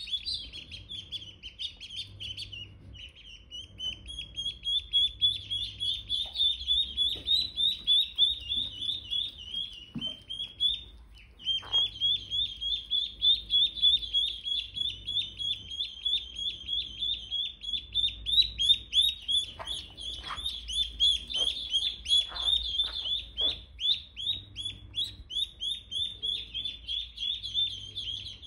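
Ducklings peeping continuously: rapid, high-pitched, downward-sliding peeps several a second, with a brief pause about eleven seconds in.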